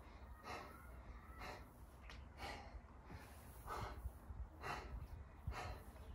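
A man breathing hard under exertion during squats, with a short, airy breath roughly once a second. A faint low rumble runs underneath.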